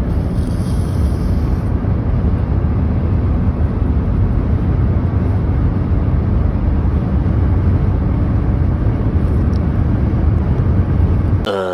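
Steady road and engine rumble inside a moving car's cabin, heavy in the low end.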